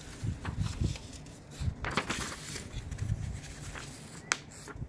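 A folded paper instruction sheet rustling and crackling as it is unfolded and handled, with a sharp click about four seconds in.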